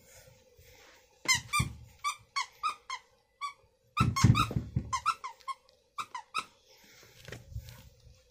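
Short high squeaks in quick runs, typical of a squeaky cat toy being squeezed. A burst of thumping and rustling comes about four seconds in.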